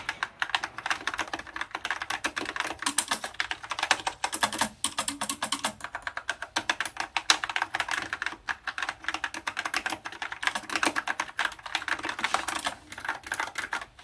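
Fast, continuous typing on a Rymek retro-style mechanical keyboard: a dense run of clicky keystrokes with a few short pauses.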